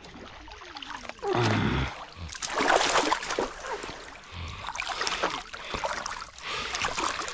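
Water splashing and sloshing in a few irregular bursts, the loudest about two to three seconds in.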